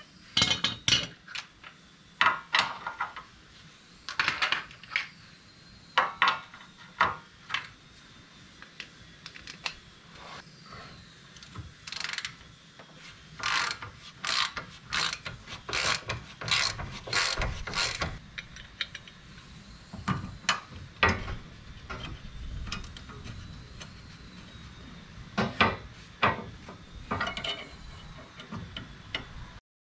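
Metal parts clicking and clanking as ATV snow plow mounting hardware is handled and fitted by hand, with a quick run of sharp clicks about halfway through.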